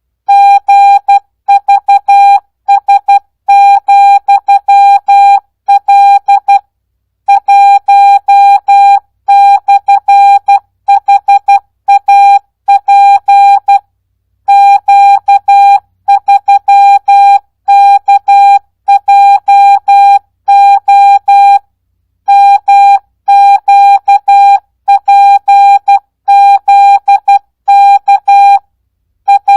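Morse code sent as a keyed audio tone of about 800 Hz at 12 words per minute without Farnsworth spacing: short dits and longer dahs switching sharply on and off, with slightly longer pauses between words.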